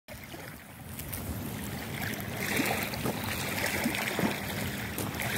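Steady wind and small waves washing on a pebble shore, with a few faint clicks.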